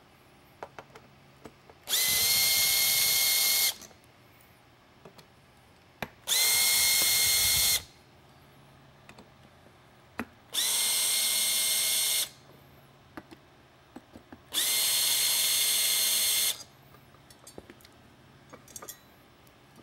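Makita cordless drill/driver backing out four bolts, one after another: four runs of motor whine of about two seconds each, each spinning up quickly and then holding a steady pitch. Small clicks and handling knocks fall in the pauses between bolts.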